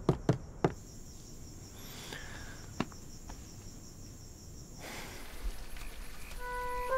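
Crickets chirping in a steady, high, pulsing trill, with a few soft knocks in the first second and one more a few seconds in. The trill stops about five seconds in, and gentle music fades in near the end.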